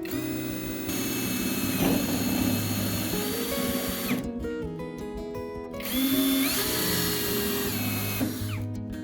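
Handheld electric drill running in two bursts of a few seconds each, with a short pause about four seconds in. Its pitch slides as the motor speed changes.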